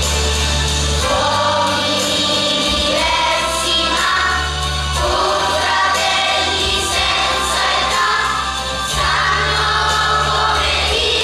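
Children's choir singing together over an instrumental accompaniment, with sustained bass notes shifting every second or two beneath the voices.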